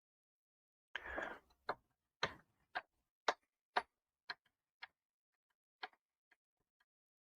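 A run of light, sharp clicks, about two a second, thinning out toward the end, with a short scraping rustle about a second in.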